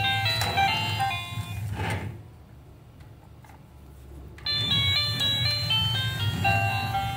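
Battery-powered musical ladybug toy playing a beeping electronic jingle over the steady hum of its drive motor as it moves about on its own. The tune stops for about two seconds near the middle, then starts again.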